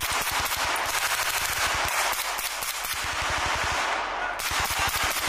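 Automatic rifle fire: rapid bursts of shots, about ten a second at the fastest, with brief gaps between bursts.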